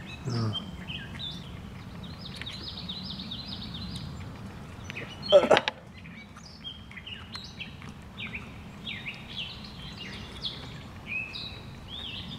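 Several songbirds chirping and singing again and again over a low steady outdoor rumble. A single brief, loud pitched sound cuts in about five seconds in.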